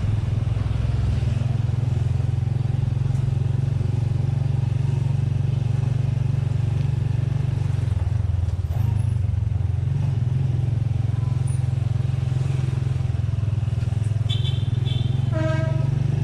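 A small motorcycle's engine runs at a steady, even speed, heard from the rider's seat. Near the end there is a brief higher-pitched tone.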